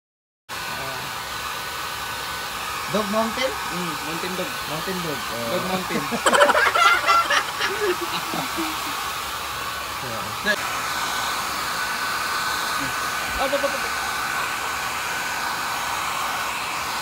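Handheld hair dryer running steadily, blowing on a freshly bathed puppy's wet fur: a steady rush of air with a faint whine in it.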